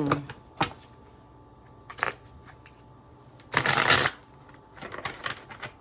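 Tarot cards being handled and shuffled: a few separate taps and clicks, a half-second riffle of cards about three and a half seconds in, then a flurry of small card clicks near the end.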